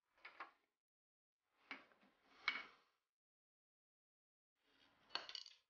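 Scrap wood offcuts knocking and scraping against each other as pieces are picked out of a cardboard box, in three short bursts of clatter with sharp wooden clicks.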